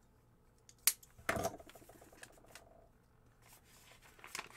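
A paper mail envelope being opened by hand. A sharp snap comes about a second in, then a short rasping stretch of paper noise that trails off into fine rapid ticks, and light paper clicks come near the end.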